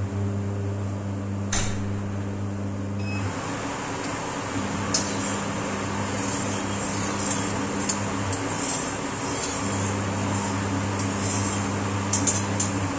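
A flat metal spatula scraping and clinking against a metal kadhai as hot oil is spread around the pan, with a few sharp metallic taps, several close together near the end. Under it runs a steady hum and hiss.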